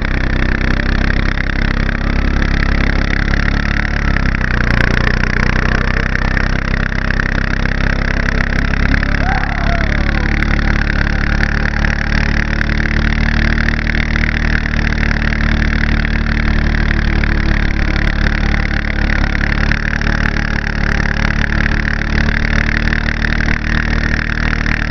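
A vehicle engine running steadily as it tows a loaded sled through snow, with a constant rushing noise over it.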